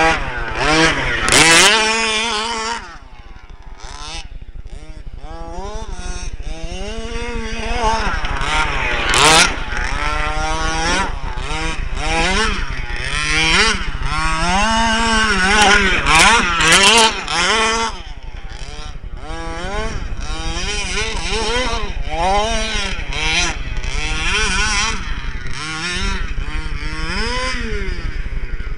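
27cc two-stroke gas engine of an FG 1/5-scale RC truck, fitted with a tuned pipe, revving up and down over and over as the truck is driven, its pitch rising and falling every second or two. A few sharp cracks cut in now and then.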